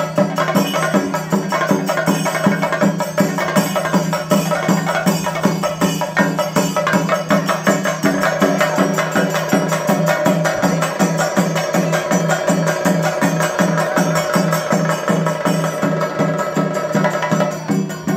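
Traditional festival procession music: rapid, even drum strokes over a steady low drone, with a held higher note joining from about eight seconds in until near the end.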